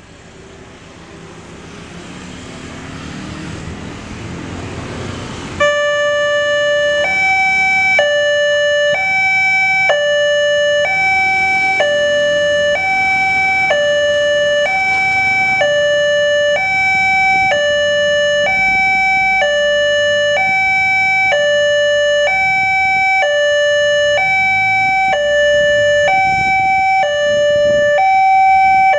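Indonesian railway level-crossing alarm sounding: an electronic two-tone signal that alternates between a high and a low note about once a second, warning that a train is coming as the barriers close. It starts abruptly about six seconds in, after a rising rush of motorbike and road noise.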